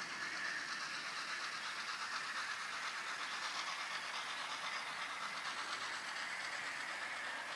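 OO gauge model train running on garden track, the locomotive's motor and the wheels on the rails making a steady running sound.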